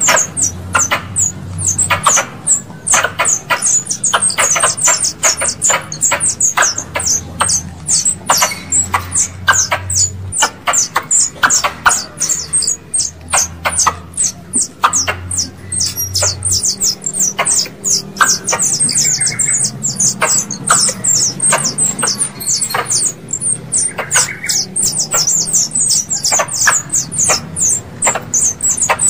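Squirrel calls played as a lure: a rapid, unbroken run of short high chirps, each dropping in pitch, with sharp clicks among them. A low hum underneath stops a little past halfway.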